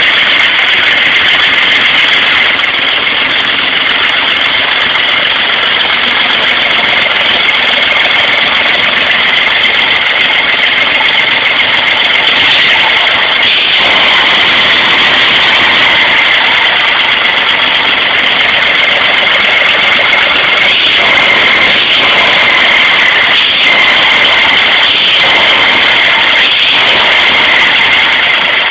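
An engine running steadily at constant speed, loud and close to the microphone, on a test run.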